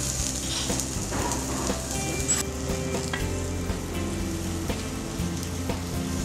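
Mushroom and egg scramble sizzling in a frying pan while a wooden spatula stirs it and scrapes the pan, with scattered small scrapes and taps.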